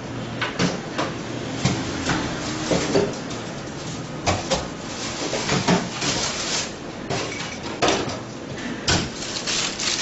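Irregular knocks and clatter of kitchen things being handled and set down, about a dozen sharp knocks spread through, over a steady background hiss.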